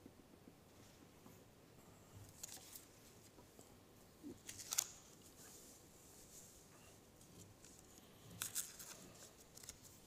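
Near silence, with three short bursts of faint rustling and clicks from sermon notes being handled at the lectern, the loudest about halfway through.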